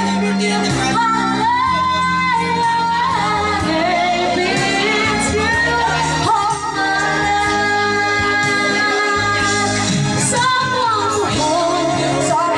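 A woman singing a slow song into a handheld microphone over an amplified backing track, holding long notes with vibrato.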